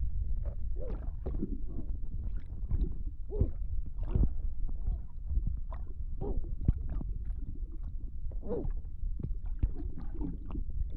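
Sound effect of a drowning man struggling in water: a constant heavy low underwater rumble with gurgling and splashing, broken by short muffled cries every second or so.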